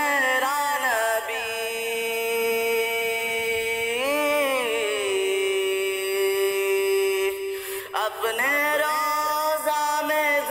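Unaccompanied voice singing a naat in long drawn-out notes. A steady held note dips and falls about four seconds in to a second long held note. After a short break near eight seconds, the voice carries on in a wavering melodic line.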